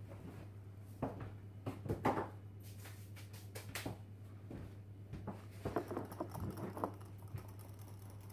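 Scattered light knocks, clicks and scrapes of a person getting up from a chair, moving about and sitting back down at a table, over a steady low hum.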